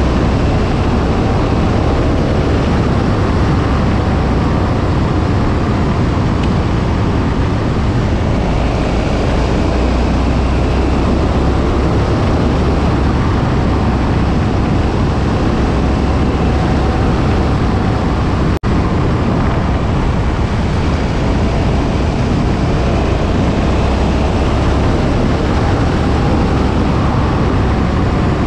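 KTM 1290 Super Adventure's V-twin engine running under way, its note rising and falling with the throttle, mixed with wind noise on the microphone. The sound drops out for an instant about two-thirds of the way through.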